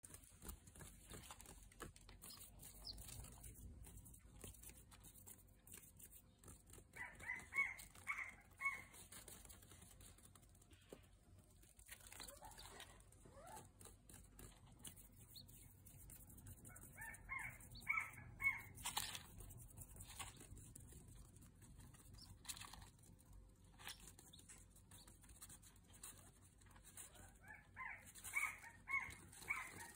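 Day-old-style California quail chicks peeping: three short runs of quick, high peeps, roughly ten seconds apart, over faint scattered taps and scratching from the chicks moving and pecking on the feed dish and pad.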